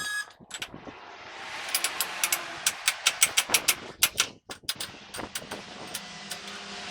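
A rapid series of sharp clicks or knocks, about four to five a second, from about two seconds in to about four seconds in, then a few scattered ones over a steady background hiss.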